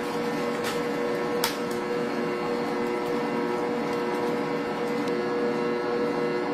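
Bosch stand mixer running steadily with an even motor hum, beating creamed butter and sugar as eggs are added. Two sharp taps come in the first second and a half.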